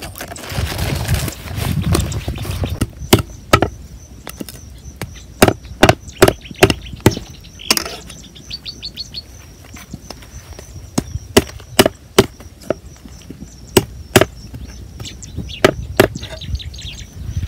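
Machete chopping a fish on a round wooden chopping block: sharp, irregular knocks of the blade into the wood, about one or two a second, after a couple of seconds of rustling. Birds chirp faintly behind it, with a short run of falling chirps about halfway through.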